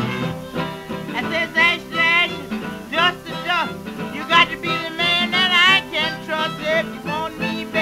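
Background music: an old acoustic country-blues recording, with a high lead line wavering up and down over the accompaniment.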